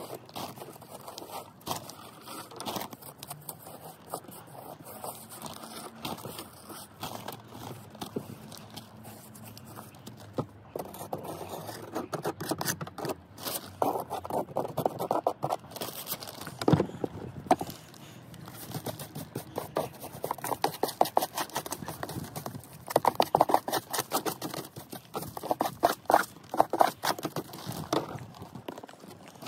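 Hand tool scraping and raking old mortar pointing out of the brick joints along lead step flashing, in bursts of rapid repeated strokes that grow louder and busier in the second half.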